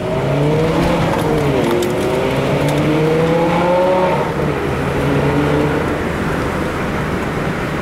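Lamborghini Gallardo LP 570-4 Spyder Performante's 5.2-litre V10 engine under way: its note falls, then climbs for about two seconds as it accelerates, drops about four seconds in and holds lower as the car pulls away.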